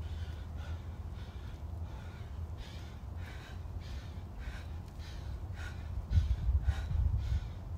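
A man breathing hard and fast from exertion during burpees, about two harsh breaths a second, over wind rumbling on the microphone, with a louder low rumble near the end.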